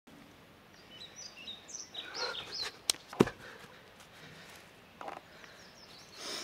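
Outdoor yard ambience with small birds chirping in short high calls for the first few seconds. Two sharp clicks about three seconds in, the second the loudest, and a fainter knock a couple of seconds later.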